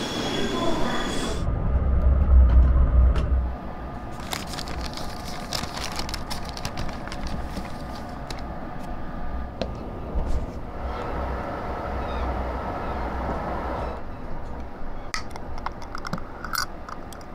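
Low rumble inside a train carriage, loudest a couple of seconds in, under a paper bag rustling and crinkling as a glass jar is taken out. Near the end the jar's metal screw lid clicks as it is twisted open. It opens with a second of station platform noise beside a Kintetsu limited express train.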